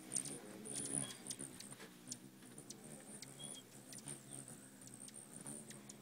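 Hummingbirds hovering at a feeder: the low buzz of their wingbeats, with a rapid run of short, high-pitched chips and ticks that is busiest in the first second or so.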